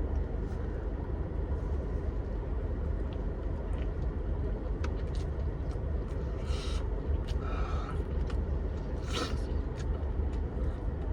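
Bites and chewing into crunchy taco shells filled with sushi, with short crunches about halfway through and again near the end, over a steady low rumble.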